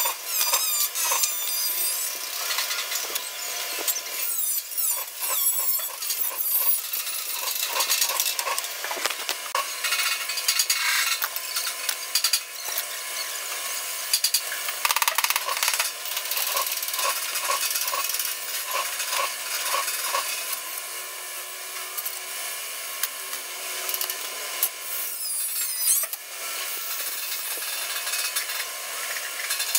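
Fast-forwarded metal-shop noise: tool and metal-handling clatter running at high speed, busy and high-pitched, with a few quick chirping sweeps near the start, about four seconds in and again near the end.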